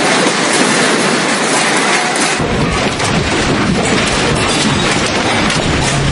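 Loud, continuous rushing noise of tsunami floodwater churning with debris, with a deep rumble joining about two and a half seconds in.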